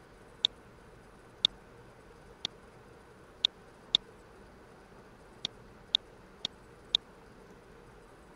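Computer mouse button clicks: about ten sharp single clicks at uneven intervals, some louder than others, over a faint steady hiss.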